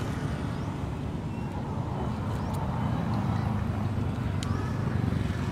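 Steady low rumbling background noise, a little stronger in the middle.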